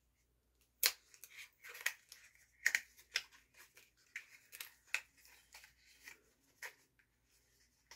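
Small cardboard product box being handled and picked at to open it: scattered sharp clicks and crinkles, some louder snaps among them.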